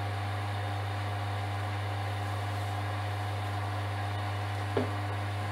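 Axminster Craft wood lathe running at a steady speed with a constant low hum, spinning a pen blank on its mandrel; one short click near the end.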